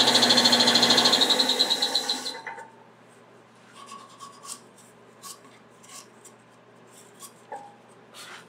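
Sandpaper rasping against a wooden bottle stopper spinning on a lathe, with a fast pulsing rhythm; it stops about two seconds in. A few faint light clicks and taps follow.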